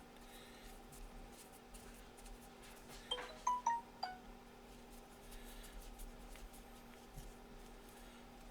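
A few light ringing metallic clinks about three to four seconds in, from a screwdriver against the steel parts of an M1895 Nagant revolver while its side-plate screw is tightened down, over a faint steady hum.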